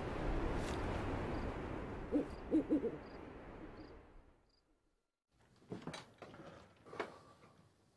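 A rushing noise fades out over about four seconds, and a short run of owl hoots comes a little after two seconds in. After a second of silence there are a few faint knocks.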